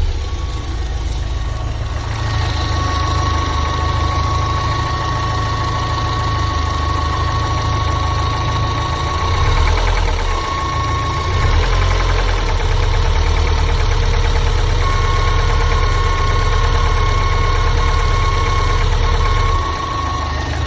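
Lotus Elise S2 111S engine running steadily with a knock, and a thin high whine over it that cuts out twice and comes back: the knocking and howling the owner suspects is a failure.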